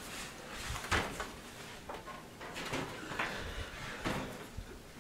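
Handling noise from a large full-tower PC case being turned around on a towel: a few soft scuffs and light knocks.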